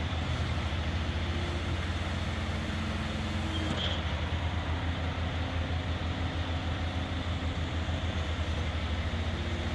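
Propane Caterpillar forklift engine idling steadily, a low, even pulsing hum.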